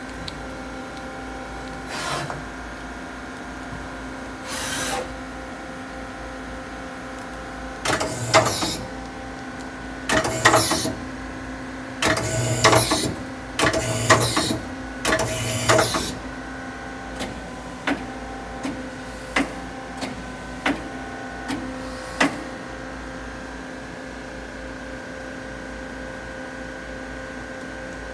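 Daewoo Lynx 200A CNC lathe running with a steady machine hum while its 12-station turret indexes. A run of short mechanical bursts, each about a second long, comes in the middle, followed by a string of sharp single clicks.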